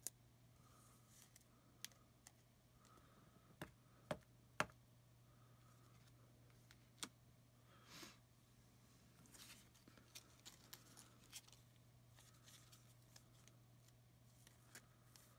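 Quiet handling of trading cards and their plastic holders: scattered light clicks and taps, the loudest about four and a half seconds in, over a low steady hum.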